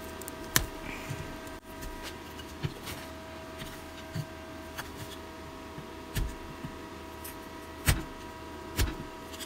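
Small hand chisel cutting into a wooden lure body, carving out a cavity, with scattered sharp clicks and snaps as chips break away; the loudest snaps come about half a second in and twice near the end.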